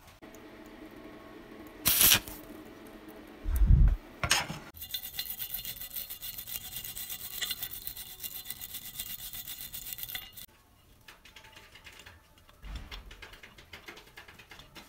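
Two loud knocks in the first four seconds. Then about six seconds of steady, fast rubbing as a strip of abrasive cloth is worked back and forth over the domed metal washer on a meat grinder's crank handle, polishing it. A few light clicks and a soft bump follow.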